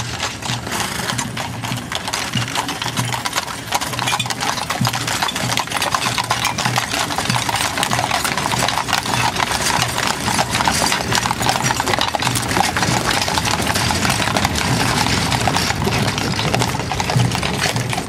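Horses' hooves clip-clopping on a paved road as a team pulls a horse-drawn caisson past, with a steady rumble of the caisson's large spoked wheels rolling along behind.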